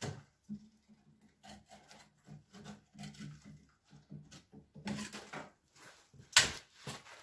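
Split pieces of lightered pine (fatwood) knocking and scraping against each other and the stove's firebox as they are laid in by hand, a run of short wooden clatters with a sharper knock near the end.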